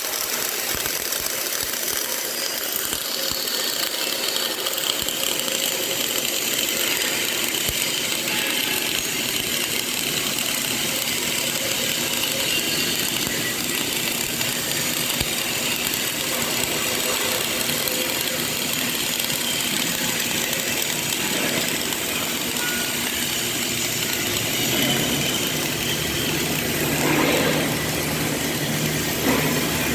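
CO2 (MIG/MAG) welding arc crackling steadily as a bead is laid. A low hum joins in near the end.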